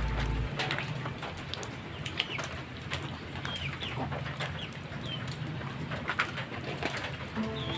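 Birds chirping: short, high calls about once a second, with a few light clicks and knocks among them.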